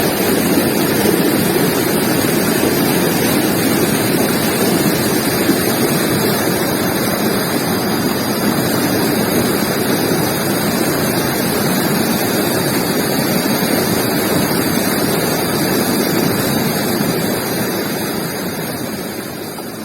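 River water flowing steadily, a dense, even rushing sound, fading out near the end.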